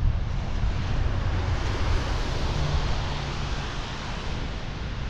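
Wind buffeting the microphone in a low rumble over a steady hiss of rain and traffic on wet pavement, the hiss swelling about two seconds in.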